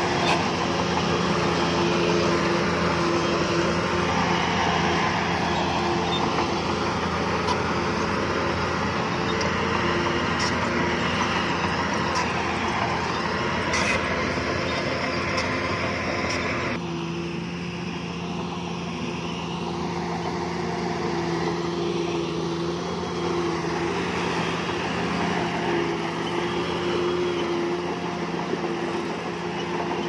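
Heavy diesel construction machinery running steadily with a continuous engine drone; the sound changes abruptly a little past halfway through.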